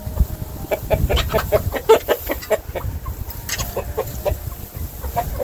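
Chickens clucking: a quick run of short clucks about a second in, then another cluster past the middle.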